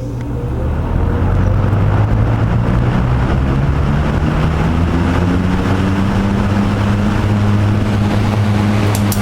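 Vintage McGraw-Edison Tempmaster 16-inch metal box fan starting up on high. Its four-pole shaded-pole motor hums and the blades rush air, the noise building over about the first second and the hum creeping up in pitch as the fan comes up to speed, then running steadily and loudly.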